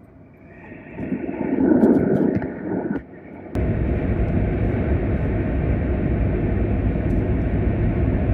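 Running noise of a CRH2E high-speed train heard inside the car, a dense rumble and rush of wheels on rail. It swells about a second in, drops briefly, then jumps sharply louder about three and a half seconds in and holds steady.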